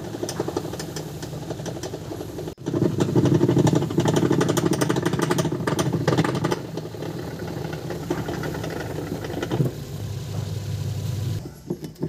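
LG top-load washing machine running, motor and belt drive turning, with a rapid knocking rattle from the transmission gearbox. The knock is the sign of a worn gearbox that has developed play.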